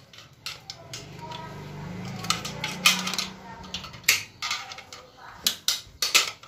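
Metal parts inside a Daihatsu Xenia automatic transmission case clicking and clinking as they are worked loose by hand, about a dozen scattered sharp clicks.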